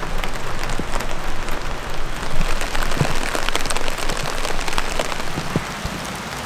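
Steady rain falling, with many separate drops tapping against surfaces.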